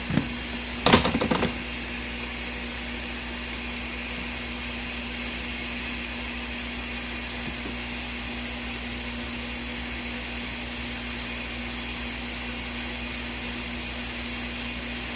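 RV washing machine running its wash cycle: a steady motor hum with an even tone. A short, loud burst of noise cuts in about a second in.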